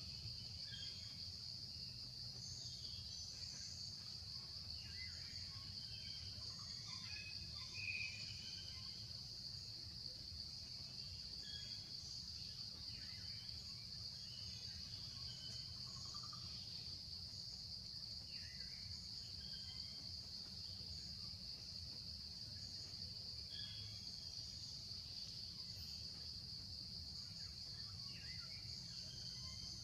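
Steady, high-pitched drone of insects in the trees, with scattered short bird chirps over it and a faint low rumble underneath.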